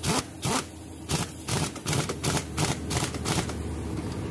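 Pneumatic impact wrench fired in about ten short bursts, hammering on an engine mount bolt to run it out.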